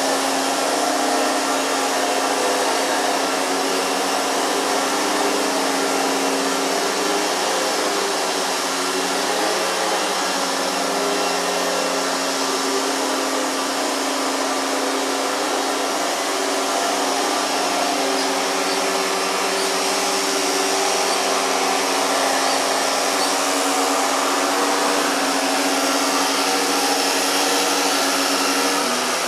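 Loud motor-driven machine running steadily, a hum with a strong hiss over it, its pitch shifting slightly a few times.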